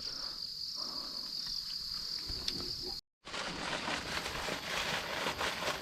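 Steady high-pitched chorus of insects chirring in the hills. About three seconds in it cuts off abruptly, and a steady noisy hiss follows.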